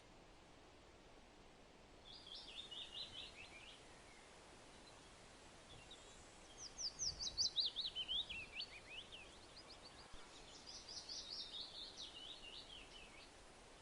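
A songbird singing three phrases, each a quick run of high notes that falls in pitch, the middle one the loudest. A faint steady hiss lies underneath.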